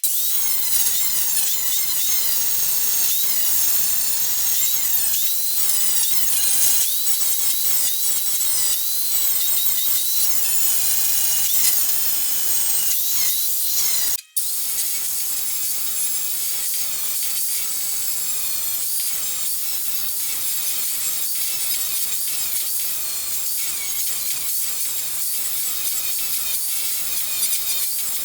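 Angle grinder working the sheet-metal body panel, a high whine that wavers in pitch as the disc bears on the steel. The sound breaks off for an instant about halfway.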